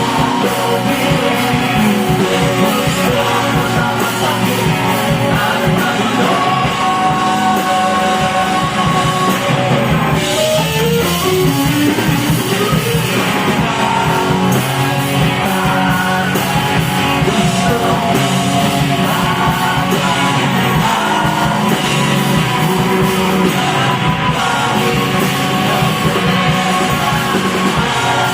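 Live rock band playing loud, with electric guitar and a vocalist singing and yelling over it.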